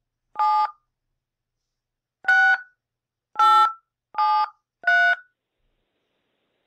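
Five touch-tone (DTMF) dialing beeps from a Skype dial pad, keyed one at a time: one about half a second in, then four more in quicker succession after a two-second pause. They are the digits 7, 6, 8, 7, 3, spelling a surname into an automated phone directory.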